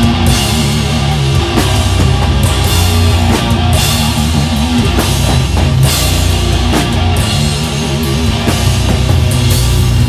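Live rock band playing an instrumental passage: distorted electric guitars, bass and a full drum kit with frequent cymbal crashes.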